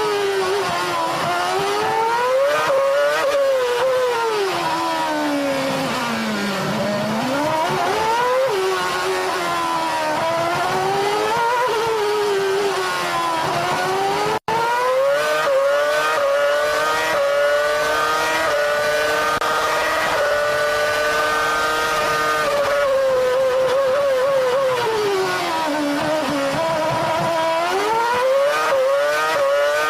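Formula One car engine heard onboard at racing speed: a high-pitched note climbing through the gears and dropping under braking, with a deep fall into a slow corner early on. It cuts out for an instant about halfway, then holds a long, steady high note before braking and climbing again.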